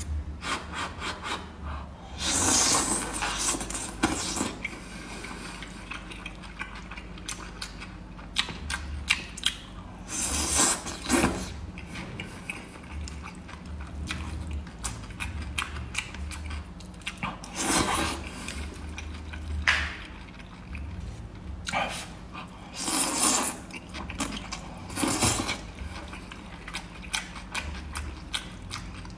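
Close-up eating sounds of wide lapi starch noodles in sauce: five or six loud slurps of a second or two each, with wet chewing, lip smacks and small chopstick clicks in between.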